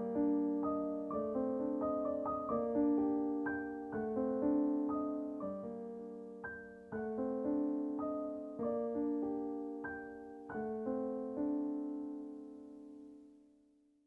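Soft solo piano music: slow, gentle notes struck one after another, each ringing and dying away. It ends on a final held chord that fades out to silence near the end.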